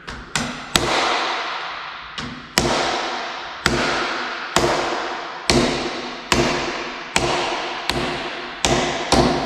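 Hammer tapping a chisel to chip out the recess for a pocket door handle in a wooden door. About a dozen sharp strikes, roughly one a second, each ringing on.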